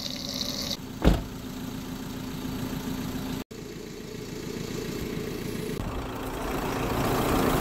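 A motor running with a steady low hum, and a single thump about a second in.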